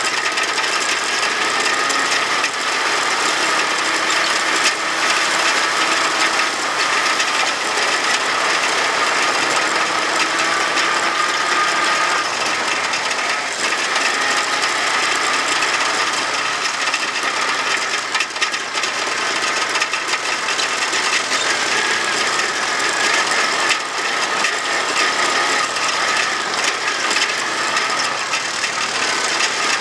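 ATV engine and drivetrain running steadily while riding a rough trail, with a constant mechanical clatter and rattle, the engine note drifting a little up and down with the throttle.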